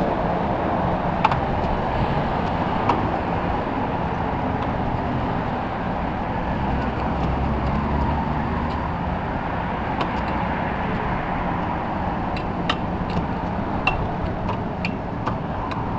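Steady urban street ambience with road traffic noise, with a few faint scattered clicks.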